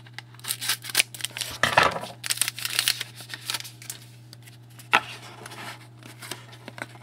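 Hockey trading cards handled and flipped through by hand: quick slides, taps and rustles, with a sharper click about five seconds in.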